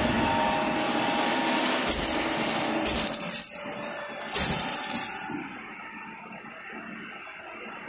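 Automatic tube-end closing machine working a red-hot tube end: a steady mechanical hum, then three short high-pitched squeals between about two and five seconds in, after which the machine goes quieter.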